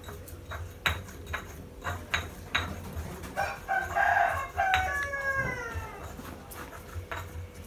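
A rooster crows once about midway: one long call that ends in a falling glide. Before it come several sharp knocks of a kitchen utensil in the cooking bowl.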